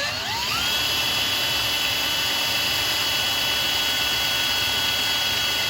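Small electric drill spinning up and then running at a steady high whine while boring a small hole through an acrylic pen barrel.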